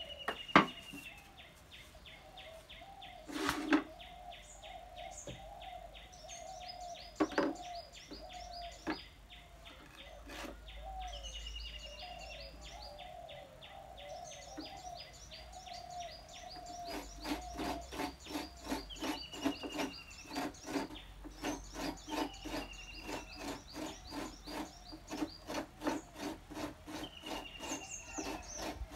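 A few wooden knocks and clatters as the coconut scraper stool is opened and set up. From about 17 seconds in come even rasping strokes, about two a second: a coconut half being scraped against the stool's serrated blade. Birds chirp throughout.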